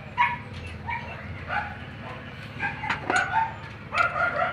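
A dog barking again and again over the steady low running of a Mitsubishi 4D56 diesel engine, which is idling after its fuel shut-off solenoid was bypassed.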